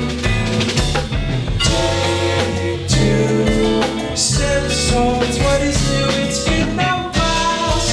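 A live band playing: electric guitar, bass and drum kit in a full, continuous groove.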